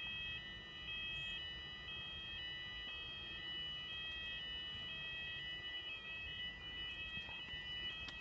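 Fire alarm sounders, weatherproof Fulleon Symphoni sounder-beacons on a Fulleon/Cooper addressable system, sounding a two-tone alternating alarm that switches pitch about twice a second over a steady lower tone, as in a routine weekly fire alarm test.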